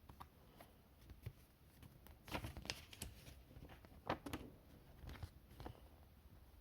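Light handling noises: scattered small clicks and rustling of plastic being handled, thickest in a cluster between about two and four and a half seconds in.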